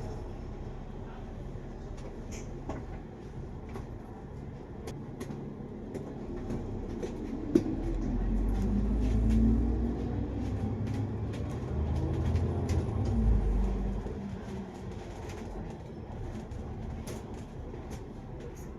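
KMB double-decker bus heard from inside the cabin: a steady engine and road rumble with frequent small rattles and clicks. The rumble grows louder for several seconds in the middle, then eases off again.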